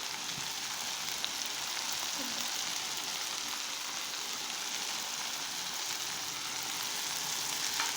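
Chopped onion, peppers and garlic sizzling steadily in hot oil in a pan, a seasoning base being sautéed.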